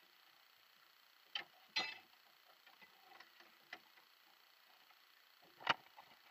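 A few sharp knocks close to the microphone over a faint, quiet background: two about a second and a half in, a light one midway, and the loudest just before the end.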